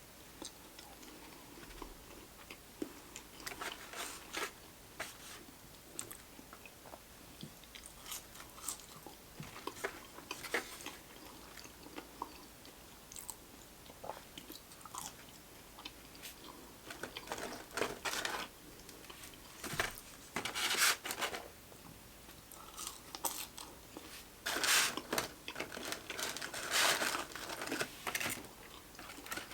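A person biting and chewing crunchy fried fast food close to the microphone: irregular crisp crunches and wet chewing, with clusters of louder crunching about two-thirds of the way through and near the end.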